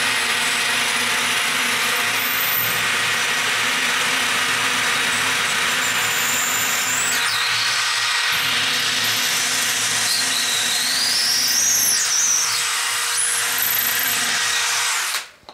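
DeWalt 12V XR brushless cordless drill boring into ceramic wall tile, running steadily for about fifteen seconds. A high squeal rises and falls a few seconds before the end, and the drill stops abruptly.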